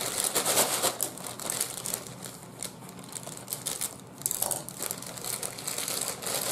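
Plastic poly mailer bag crinkling as it is handled and pulled at to get it open, in uneven bursts with a quieter spell in the middle.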